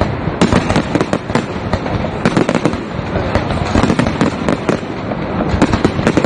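Fireworks going off in a dense volley: many sharp bangs and crackles in quick succession over a continuous noisy background.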